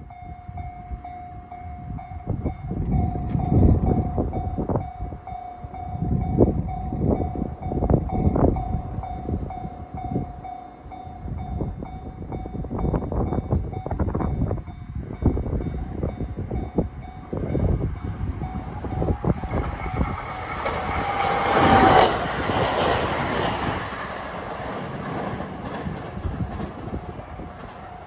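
A level crossing warning bell rings with a steady tone while a 521 series electric train approaches and runs past. The train is loudest a little after the middle and fades near the end, with gusts of wind buffeting the microphone.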